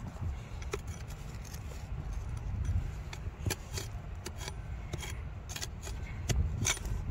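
Scattered sharp clicks and scrapes of a hand digging tool striking and working basalt around a nodule. The clicks come more often in the second half, over a steady low rumble.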